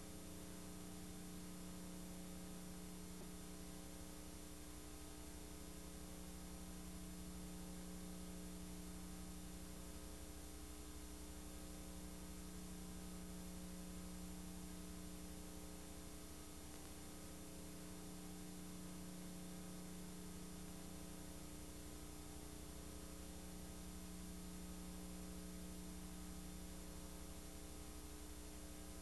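Faint steady electrical hum: a buzzy stack of tones with a light hiss and no other sound.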